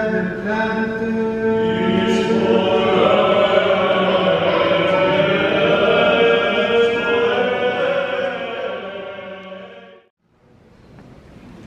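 Orthodox liturgical chant sung by several voices in long held notes, fading out and breaking off about ten seconds in. After a moment of silence, faint steady room noise follows.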